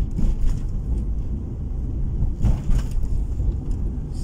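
Low rumble of a car's engine and tyres heard from inside the cabin while driving, with brief louder noises about half a second and two and a half seconds in.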